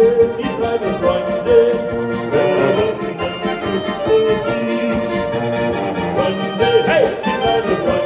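Live folk band music: a Styrian button accordion (Lanzinger) playing together with clarinet and trumpet in a lively tune.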